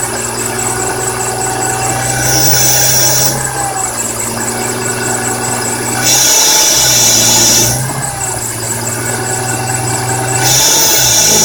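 BMW E46 M3's S54 straight-six running steadily, with a high-pitched scraping chirp that comes and goes in spells of about a second, roughly every four seconds.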